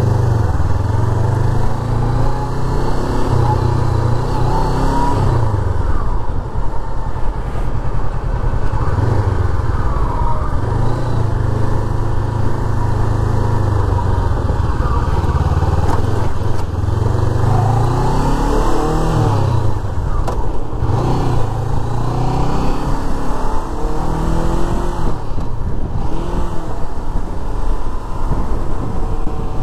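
Sport motorcycle's engine running under way, its pitch rising again and again as it accelerates through the gears and dropping as it shifts or slows.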